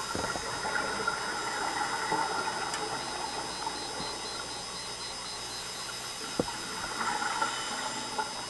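Underwater sound of a scuba dive: a steady hiss with two spells of the diver's exhaled regulator bubbles, the first starting about half a second in and the second near the end, and one sharp click a little after six seconds.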